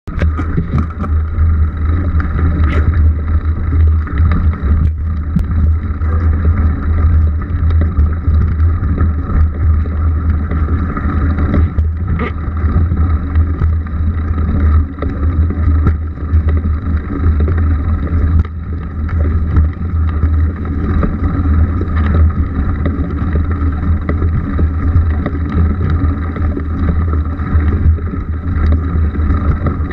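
Mountain bike ridden over rough grass and heard from a bike-mounted action camera: a steady, heavy wind rumble on the microphone, with tyre noise and frequent small rattling knocks from bumps.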